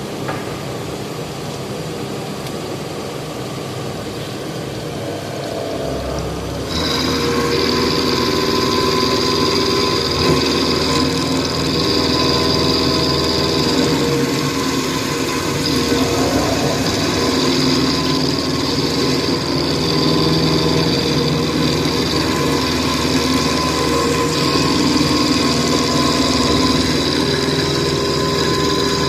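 Haas CNC milling machine running: a steady machine whine made of several steady tones, which steps up louder about seven seconds in and then holds, with some tones coming and going as it works.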